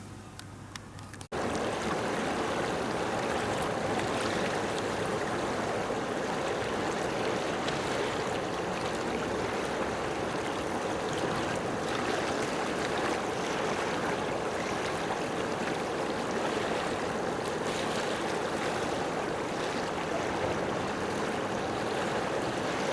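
Steady rushing noise like running water, starting suddenly about a second in.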